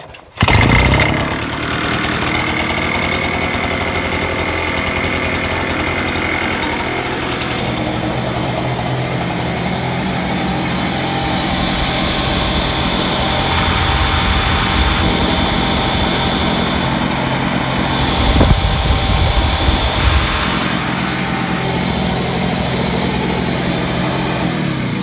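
Small engine of an Invatech 915 backpack mosquito mister catching about half a second in and then running steadily, speeding up and getting louder for a couple of seconds about 18 seconds in, before dying away at the very end.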